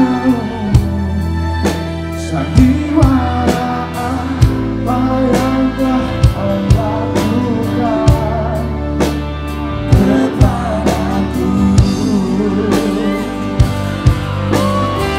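Live band music: a male vocalist singing through the PA over a steady beat of drums and bass.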